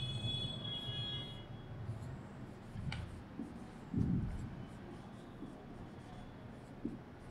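Marker pen writing on a whiteboard: faint, short scratching strokes as letters are drawn, with a brief high squeak right at the start and a soft low thump about four seconds in.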